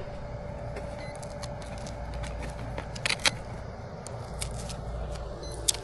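Steady low background rumble with a few short sharp clicks and rustles of handling, a cluster about three seconds in and one more near the end.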